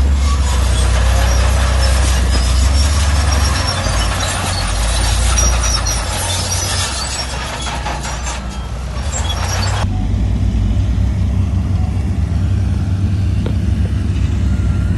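Heavy diesel construction machinery running with a deep engine drone. For about the first ten seconds there is heavy clattering and scraping of metal and rock, which stops abruptly. After that only the engine is heard, with a fast, even throb.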